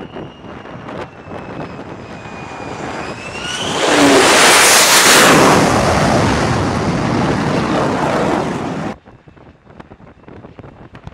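F-35B jet engine during a hovering vertical landing: a high whine that rises in pitch, then a loud roar of engine and lift-fan thrust for about five seconds. It cuts off suddenly about nine seconds in, leaving faint wind noise.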